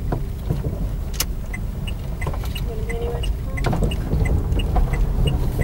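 Car engine and road rumble heard from inside the cabin while the car moves slowly through a car park, with a sharp click about a second in. From about a second and a half in, a steady series of short high beeps comes about three times a second.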